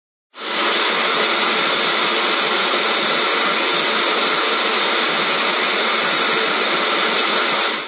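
Hoover Tempo Widepath U5140-900 bagged upright vacuum cleaner running with a steady, even whoosh. It starts abruptly just after the beginning and cuts off sharply at the end.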